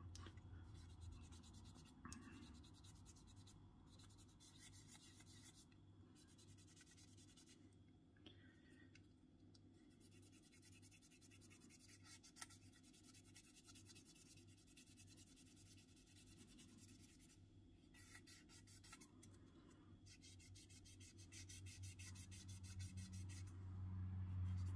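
Faint rubbing of an ultra-fine 3M sanding sponge on a clear plastic model canopy, wet-smoothing its centre seam line in short repeated strokes that grow a little louder near the end.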